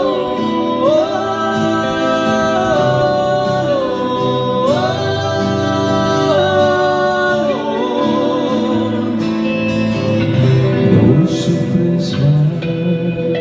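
A song continuing without lyrics: a melody of long held notes that slides up and down between pitches every few seconds, over a steady backing.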